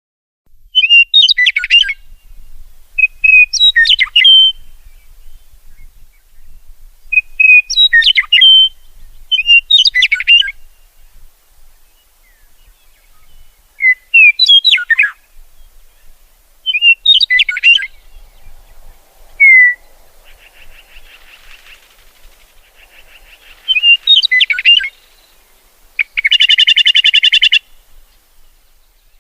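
A songbird singing short, bright whistled phrases, repeated every two to three seconds. Near the end comes a loud, harsh buzzy call.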